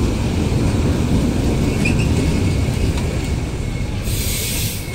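Arriving passenger train, an ЭП20 electric locomotive hauling double-deck coaches, pulling into the platform close by with a steady low rumble of wheels on the rails. A short burst of hiss comes about four seconds in.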